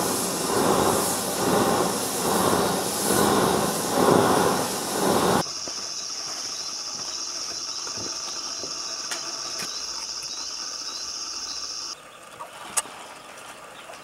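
Waste-oil-fired bronze melting furnace running with a roar that surges in regular pulses, cutting off suddenly about five seconds in. After it, a quieter steady high-pitched hiss with a few faint clicks, and one sharp click near the end.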